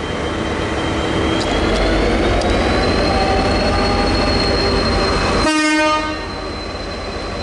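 V/Line N-class diesel locomotive, with its EMD 12-645 two-stroke engine running under load as it pulls a passenger train out of the platform. A thin high whine rises slightly and then holds steady, and a short horn toot sounds about five and a half seconds in.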